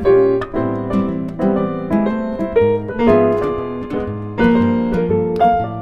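Background piano music: a steady, even run of struck notes, several sounding at once.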